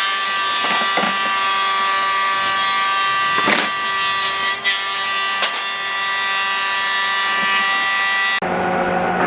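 An electric power tool running steadily on wood, a constant whine over a rough noise, with a couple of brief knocks midway. Near the end it cuts abruptly to a different, lower steady motor hum.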